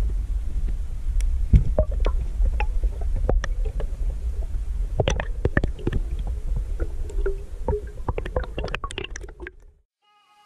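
Water and handling noise on a diver's underwater camera: a steady low rumble with scattered clicks and knocks, cutting off abruptly near the end.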